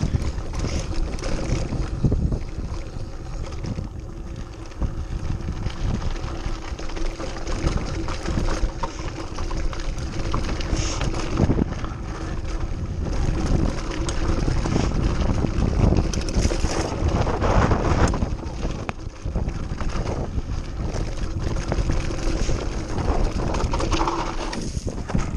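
Mountain bike riding down a dry dirt trail: tyres rolling over loose dirt and the bike rattling over bumps in many short knocks, with wind rushing over the microphone.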